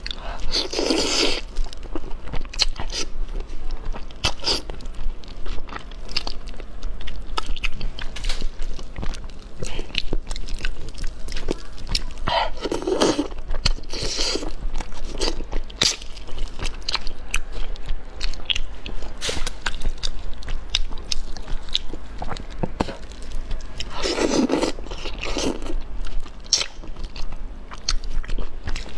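Close-miked chewing and biting of braised fish, with wet smacks and small crunches throughout. Three louder mouth noises of about a second each stand out: one near the start, one about midway and one late on.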